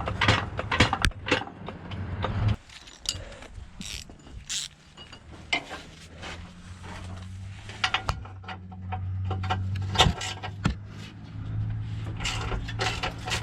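Irregular metallic clicks and clanks of hand tools and jack parts being handled under a car during suspension work, over a steady low hum that drops out about two and a half seconds in and returns about eight seconds in.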